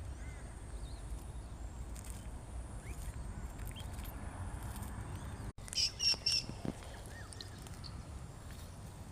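Birds chirping: scattered faint chirps, then three short, loud, high calls in quick succession about six seconds in, over a low steady rumble.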